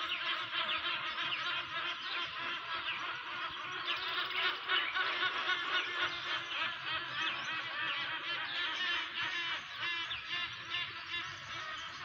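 Dawn chorus of many birds calling over one another: a dense, unbroken chatter of short, quick, sliding calls.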